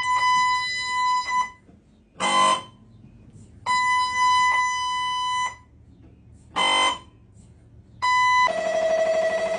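Siemens Aera MRI scanner's gradient coils sounding through a scan. There are two steady, high-pitched beeping tones about a second and a half long, each followed by a short loud buzz. Near the end a different, continuous dense buzzing sequence starts.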